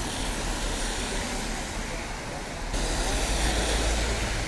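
Traffic passing on a rain-soaked road: a steady hiss of tyres on wet tarmac mixed with rain. About two-thirds of the way in it abruptly becomes louder, with a deeper rumble of traffic.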